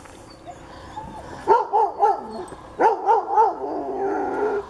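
Sled dog yipping excitedly: two quick runs of short, high yelps that rise and fall, about a second and a half in and again near the three-second mark, then a drawn-out whine near the end.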